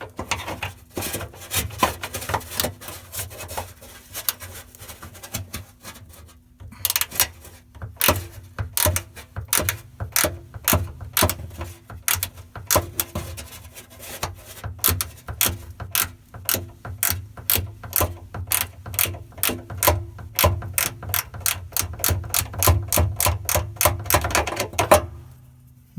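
Ratchet wrench clicking in a long, steady run of strokes, about two to three clicks a second, as a fastener on the spare-wheel winch is worked loose.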